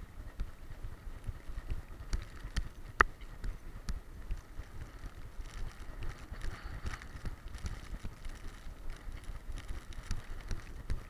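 Dog-mounted action camera jolting with a running boxer's stride: rhythmic low thuds as she gallops, with scattered small clicks on the camera housing and one sharp click about three seconds in.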